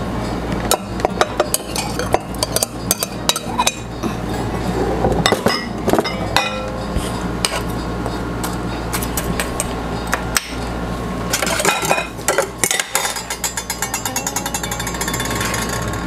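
Metal spoon scraping and tapping against a glass bowl and ceramic soup bowls as shredded cheese is spooned out: irregular clicks and knocks over a steady low hum, with a fast, even run of ticks near the end.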